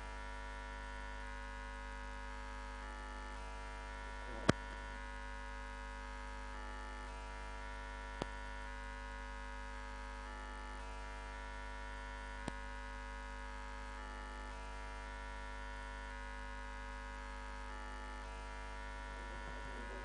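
Steady electrical mains hum from the sound system's open line, with three short clicks at about 4, 8 and 12 seconds in; the first click is the loudest.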